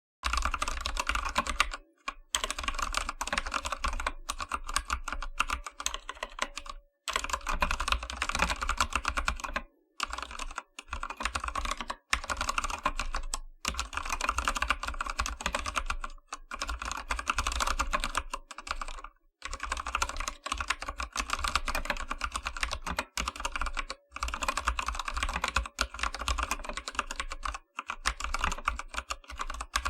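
Typing on an AKKO 3087 mechanical keyboard with Akko Orange switches (brown-like) and PBT keycaps: a rapid, continuous clatter of keystrokes, broken by short pauses every few seconds.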